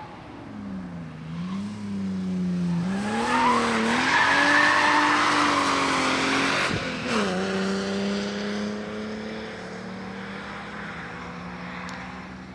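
BMW E36 328 engine revving hard through a drift run, its pitch rising and falling as the throttle is worked, with tyres squealing as the car passes. About seven seconds in the revs cut and drop to a lower, steadier note as it shifts up and pulls away, fading.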